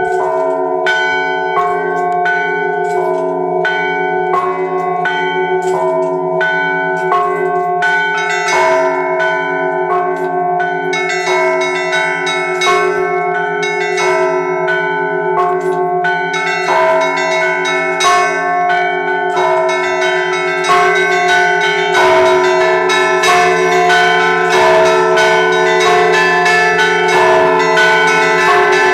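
Russian Orthodox church bells played by one bell ringer in a razgonny zvon, a festive peal. Quick, rhythmic strikes on the small bells ring over the sustained, pulsing hum of a larger bell. The strikes grow denser and a little louder about two thirds of the way through.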